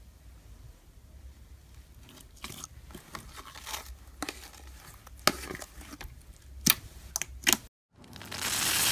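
Glossy pink slime being stretched and peeled out of a plastic container: faint sticky crackles with a few sharp pops. After a short gap near the end, a louder, dense crackling starts as a foamy, sponge-textured slime is squeezed by hand.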